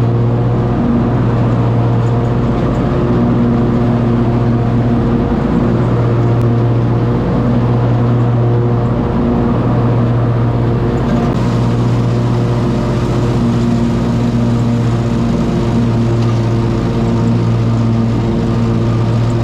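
Riding lawn mower engine running steadily under mowing load, a close, loud hum with a slow regular waver in strength.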